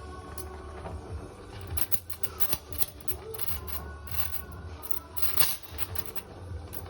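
Oxy-acetylene torch flame running steadily on a steel door hinge, with irregular crackling and ticking as the metal heats toward red hot.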